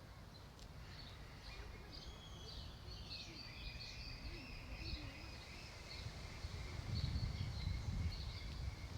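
Birds chirping and calling over a low wind rumble on the microphone; the rumble grows stronger about seven seconds in.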